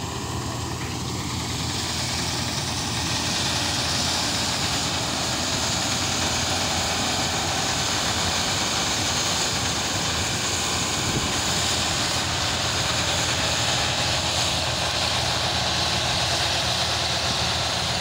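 New Holland 8080 combine harvester running steadily while cutting wheat: a continuous engine drone under a broad high rushing hiss, getting a little louder about three seconds in and then holding steady.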